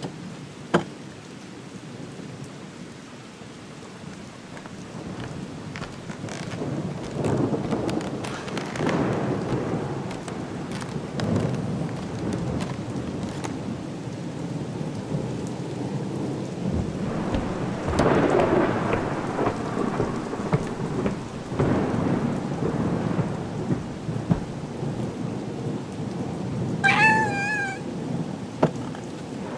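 Steady rain with two long rolls of thunder, the first swelling about seven seconds in and the second about eighteen seconds in. A single sharp click sounds just under a second in. Near the end a cat meows once, a short wavering call.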